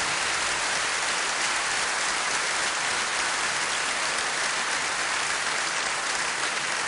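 Dense, steady applause from a large audience.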